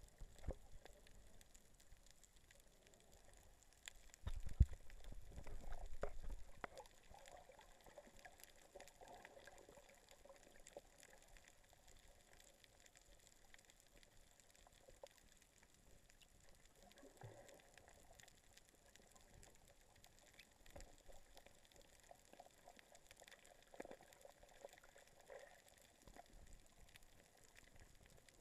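Muffled underwater sound picked up by a submerged camera: faint crackling and bubbling water with many small ticks. About four seconds in there is a louder low thump and a couple of seconds of rumble.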